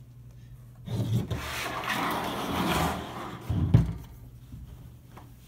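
A metal-cased box scraping as it is slid across a tabletop, then set down with a single thump about three and a half seconds in.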